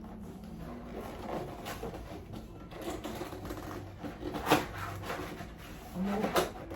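A cardboard box being worked open by hand: scraping and rustling with a few sharp knocks, the loudest about four and a half seconds in, as the tight box resists opening.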